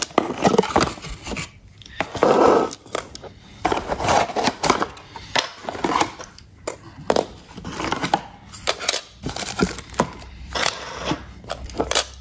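A plastic thermostat and its plastic mounting frames being unpacked from a cardboard box and handled: rustling of cardboard and packaging with many small clicks and clatters of hard plastic.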